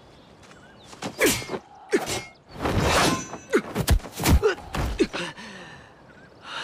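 Staged hand-to-hand fight: swishes of swinging arms and robes, slapping blows and heavy thuds of bodies hitting the ground, with short grunts from the fighters. It starts about a second in, with the heaviest thuds in the middle.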